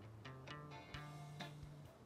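Background music: plucked guitar notes over a held low bass note.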